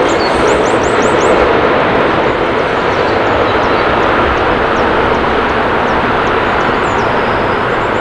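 Steady rushing noise from a passing train as its last coaches go by, blending into background traffic. Small birds chirp high above it in short quick notes, a run of four about a second in and single chirps later.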